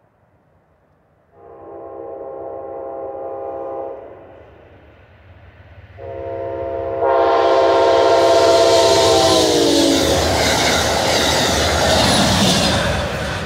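Amtrak passenger train's diesel locomotive sounding its horn twice while approaching: one blast of about two and a half seconds, then a longer one whose pitch drops as the locomotive passes. Then the loud rush and clatter of the train going by.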